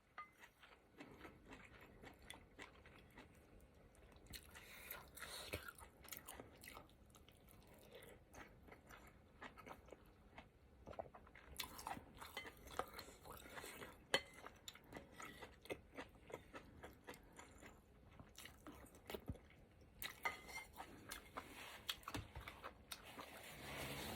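Faint chewing and wet mouth sounds of someone eating soup-soaked food: irregular soft clicks and smacks, with one sharper click about 14 seconds in.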